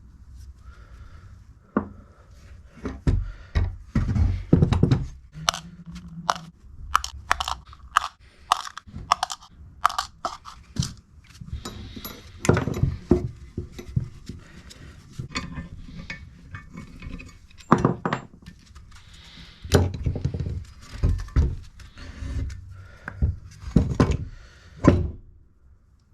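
Metal engine parts and hand tools clinking, knocking and scraping on a workbench as the engine is taken apart: a long run of sharp, irregular knocks and clicks.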